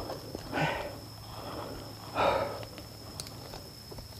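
Two short, breathy sniffs from a person close to the microphone, about a second and a half apart, over a faint steady high-pitched tone.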